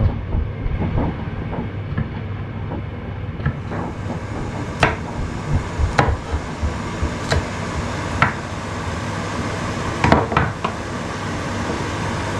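Kitchen knife knocking on a wooden chopping board while cutting curry leaves: a handful of sharp knocks, mostly in the second half, about a second apart, over a steady low rumble.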